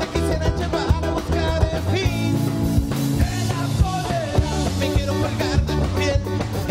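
Ska band playing a song, with a steady beat, bass and other instruments.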